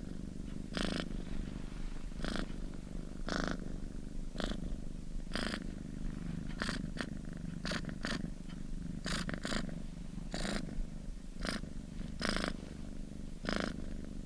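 A domestic cat purring continuously, the low rumble swelling briefly about once a second.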